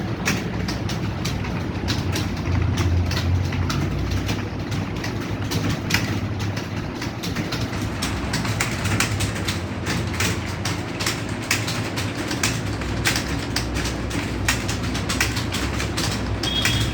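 Many computer keyboards being typed on at once in a timed typing test: a dense, irregular clatter of key clicks over a steady low hum, with one short high tone near the end.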